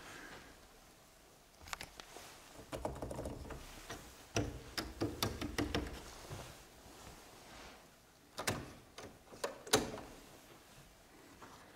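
Clicking and clacking of an old two-manual electronic organ's keys and stop tabs being pressed by hand, in scattered bunches with a few sharper single clicks near the end, and no notes sounding.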